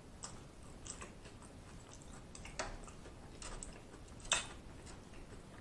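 Quiet eating sounds: a man chewing a mouthful of noodles, with a handful of soft, sharp mouth clicks and smacks, the clearest about four and a half seconds in.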